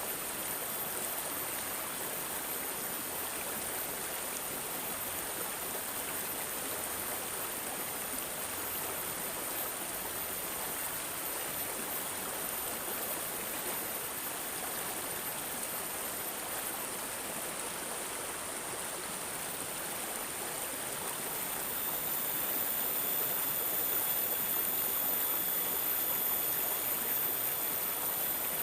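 Water gurgling and trickling in a steady flow, like a small stream. It gets a little louder about 22 seconds in.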